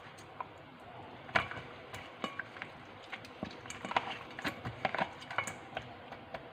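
Irregular light clicks and taps of kitchen utensils and dishes being handled during food preparation, with one sharper knock about a second and a half in.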